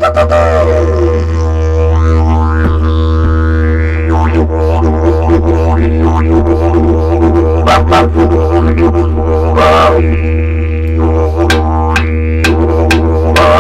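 Didgeridoo played continuously: a low, steady drone with overtones that sweep up and down as the mouth shape changes, and sharp rhythmic accents in the last few seconds.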